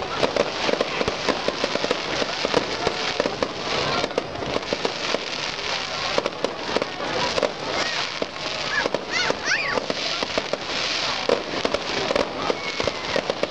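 Aerial fireworks bursting with dense, unbroken crackling and popping from glittering crackle stars.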